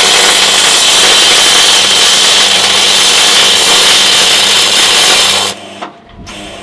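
MIG welding arc on aluminium: a loud, continuous hiss that stops near the end. The welder is doing funny things and the bead comes out as an awful weld.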